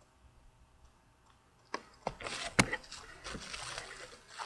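Packaging being handled and rustled, with a few sharp clicks; the loudest click comes about two and a half seconds in, after a quiet start.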